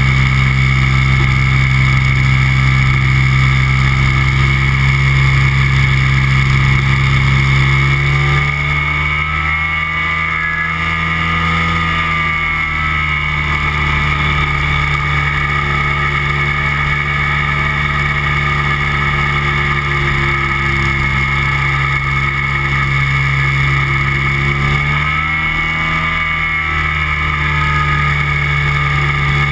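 Microlight trike's engine and propeller running steadily in flight, with noise of the air over the wing. The engine note shifts about eight seconds in, settles a few seconds later, and shifts again near the end.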